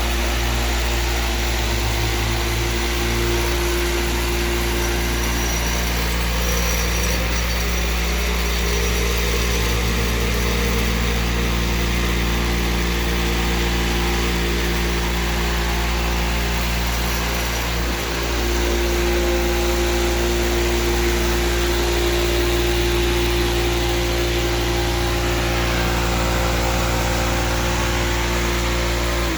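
Electric floor sander running steadily under load as it sands the floor, a constant motor hum over a hiss of abrasive on wood. It is switched off and winds down at the very end.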